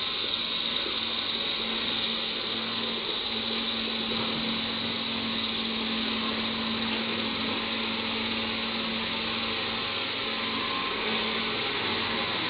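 Caterpillar 320D hydraulic excavator at work digging and swinging coal, its diesel engine and hydraulics running with a steady drone and a constant hum.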